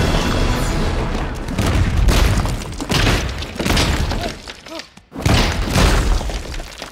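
Film fight sound effects of a body slammed again and again into a stone floor: heavy booming thuds with crunching, shattering debris, over film music. The crashes break off briefly near five seconds, then one more burst of impacts follows.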